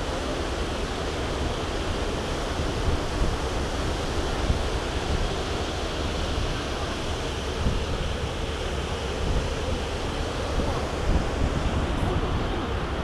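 Wind buffeting a GoPro camera's microphone: a steady rushing with a rough low rumble underneath.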